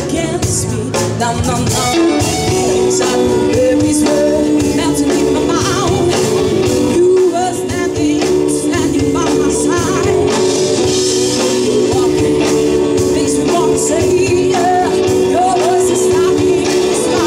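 A live rock band playing: a female lead voice singing over electric guitars, bass guitar, a drum kit and a violin.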